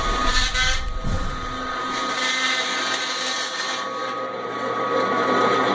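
Stark electric meat band saw running with a steady whine, its blade cutting through a frozen leg of lamb. A deep low rumble under it drops away about two seconds in.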